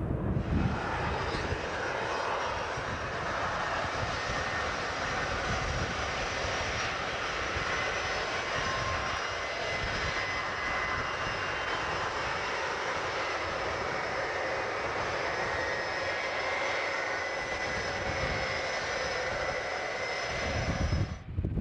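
Boeing 747 jet engines running steadily as the jumbo jet moves along the ground, a rushing roar with a thin high whine over it. The sound starts just after the beginning and cuts off shortly before the end.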